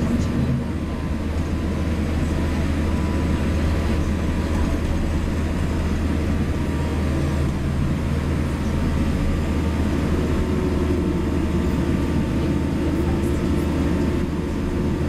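Steady cabin noise of a jet airliner taxiing: an even low engine hum with a few faint steady tones above it, heard from inside the passenger cabin.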